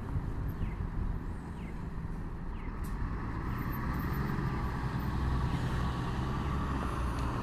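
City bus's diesel engine running as the bus turns through the intersection and drives past, a low steady drone that grows louder partway through.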